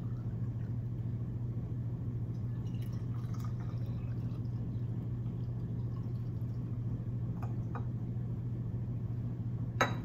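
Warm water poured from a glass flask into glass bottles, a light trickle with a few drips and small glass clinks. Just before the end comes a single sharp knock as the flask is set down.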